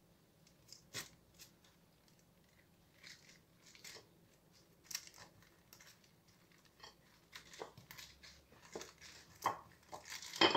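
Brown baking paper crinkling and rustling under the hands as a soft bread roll is rolled and pressed on it. The crinkles come in scattered short bursts, more often over the last few seconds.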